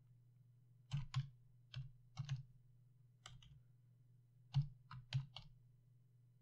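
Computer keyboard being typed: about a dozen sharp keystrokes in short irregular bursts as a word is spelled out, over a faint steady low hum.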